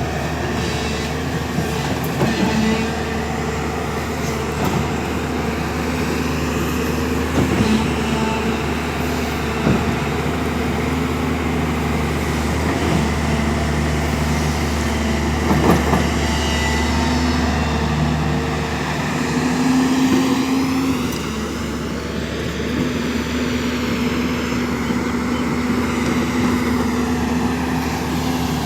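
Diesel engine of a JCB backhoe loader running steadily as it works, its pitch rising briefly about two-thirds of the way through, with a few knocks and clanks.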